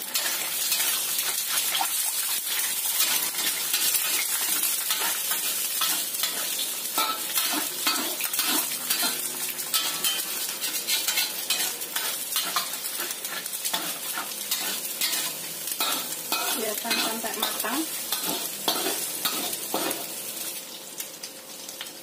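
Two eggs sizzling in hot oil as they are stirred and scraped around the pan into scrambled eggs, with frequent clicks and scrapes of the utensil against the pan. The sizzle eases off near the end.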